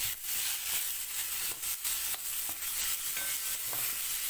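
Food frying in sesame oil in an iron kadai: a steady sizzle, with a spatula stirring and scraping against the pan every so often.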